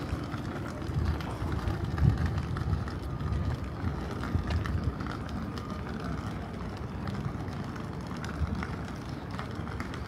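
Outdoor city ambience on foot: irregular low thuds of footsteps and a steady background hum of the urban surroundings.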